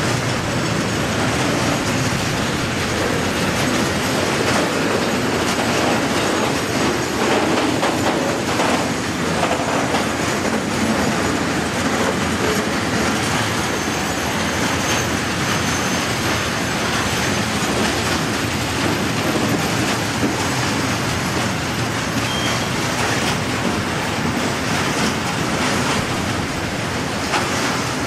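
Freight train of loaded tank wagons rolling past on the rails: a steady din of steel wheels on track that eases slightly as the last wagons go by near the end.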